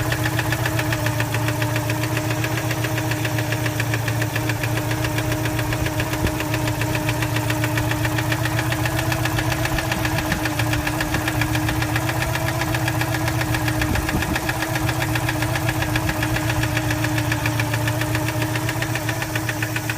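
Citroën 2CV Special's air-cooled flat-twin engine running steadily with a rapid, regular knocking. The abnormal noise appears once the engine is warm, and the owner says it comes from inside the engine, not from the tappets.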